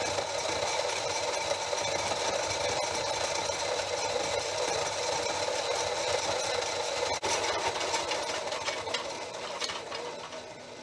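A machine running steadily with a light rattle, getting somewhat quieter over the last few seconds.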